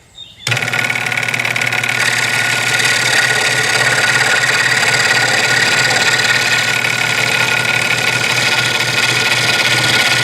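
Electric scroll saw switched on about half a second in, then running steadily as its reciprocating blade cuts an inside cut in wood, threaded through a drilled hole.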